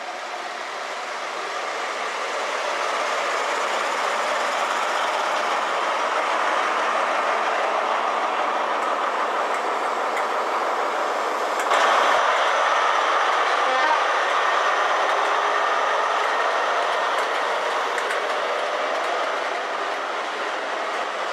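A GWR short-set High Speed Train, Class 43 diesel power cars with Mark 3 coaches, running past close by with steady engine and wheel-on-rail noise and some clickety-clack. The sound builds over the first few seconds, jumps louder about halfway through and eases off near the end.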